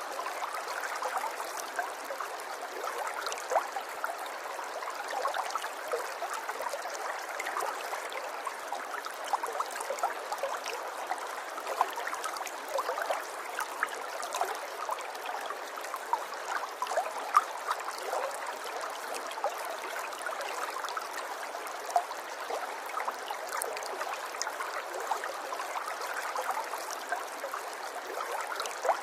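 River water flowing and gurgling over stones, a steady babble dotted with small splashes and trickles.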